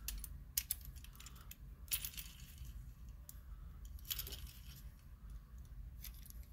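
Faint, scattered metallic clicks and clinks from a homemade wire hose-clamp tool as it is turned over in the hands, with about half a dozen separate ticks.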